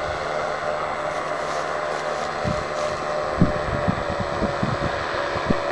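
Paramotor engine running steadily as the powered paraglider flies. From about halfway in, wind buffets the microphone with low thumps.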